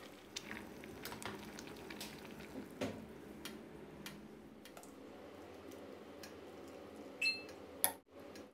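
Metal ladle stirring soup in a stainless steel pot: faint scattered clicks of metal on metal, with a short ringing clink near the end.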